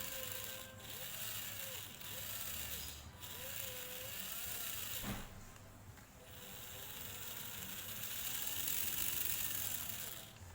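A small geared mechanism running with a steady whirr, dipping briefly about five seconds in and growing louder near the end.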